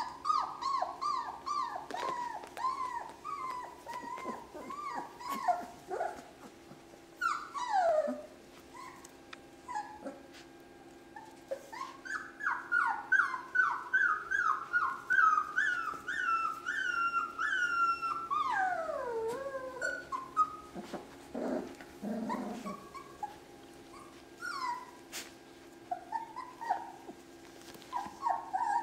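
German shorthaired pointer puppies whining and yipping, in quick runs of short high squeals with a few longer whines that slide down in pitch.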